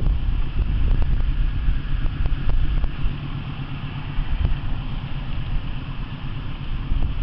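A steady low, engine-like rumble mixed with wind buffeting the microphone, easing slightly about three seconds in.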